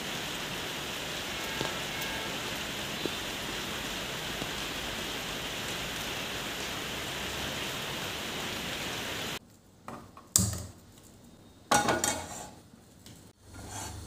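Steady rain falling on trees and surfaces, with a few faint drop ticks. It cuts off abruptly about nine seconds in, followed by two loud clanks of metal cookware.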